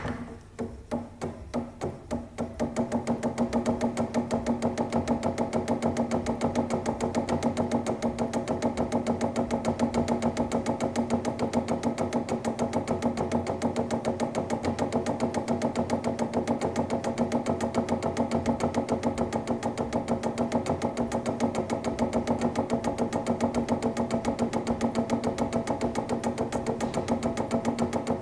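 Foosball 'tick tack' drill on a Leonhart table: a new ITSF ball is knocked back and forth between two plastic foosmen on the same rod, making quick clacks. The clacks are loose at first and settle into a fast, even rhythm after about two and a half seconds.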